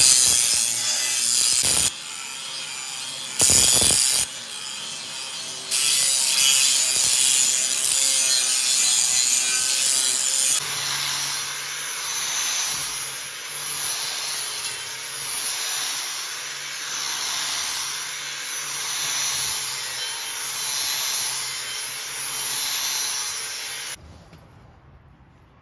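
Angle grinder with an abrasive disc grinding down the weld seams on a welded steel bumper, cleaning up the welds. It comes in several separate stretches that start and stop abruptly, the level rising and falling with each pass along the seam, and it stops about a second before the end.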